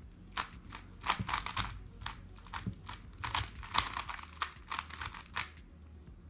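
Rapid clicking and clacking of a 3x3 speed cube's layers being turned by hand, in quick runs of turns that stop about five and a half seconds in.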